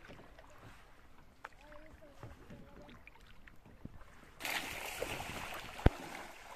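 Canoe gliding on a calm river: quiet, with a few faint knocks and drips. About two-thirds in, the steady splashing of someone wading through a shallow stream begins, with one sharp knock near the end, the loudest sound.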